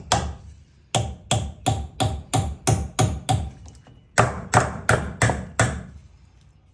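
Hand hammer striking in quick series, about three blows a second: one blow, then a run of about eight, a short pause, and about five more, with a faint metallic ring under some of the blows.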